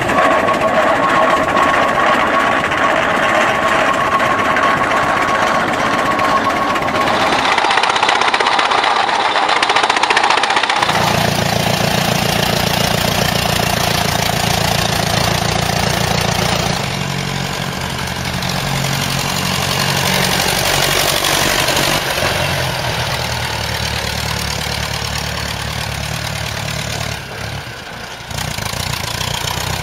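Vintage tractor engines running, cut together. First comes the Aultman-Taylor 30-60's big four-cylinder engine. About 11 seconds in the sound changes abruptly to a Ferguson TE20's two-litre four-cylinder petrol engine running with a steady low beat.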